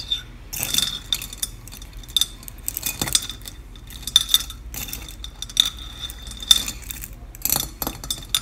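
A metal hook clinking, tapping and scraping against a slow cooker's crock and a bicycle chain, fishing the chain out of melted paraffin wax. The clinks come irregularly, several in quick succession at times, over a faint steady high tone.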